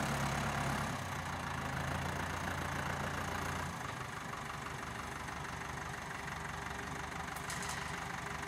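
Ursus 6024 tractor's diesel engine running steadily as it pulls a tillage unit and seed drill across the soil. It grows fainter about a second in and again near four seconds as the tractor moves off.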